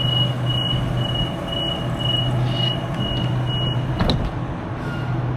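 Electric suburban train standing at the platform with a steady low hum, and a high-pitched beeping, about two beeps a second, that stops about four seconds in, followed by a short clack.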